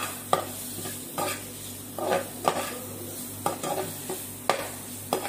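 A metal slotted spoon scraping and clinking against a metal frying pan as sliced tomatoes, onions and carrots are stirred, about eight irregular strokes. Under the strokes is a steady sizzle of the vegetables frying in a little oil.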